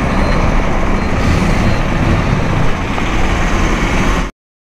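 Loud, steady road and highway traffic noise, a dense low rumble without speech, cutting off abruptly about four seconds in.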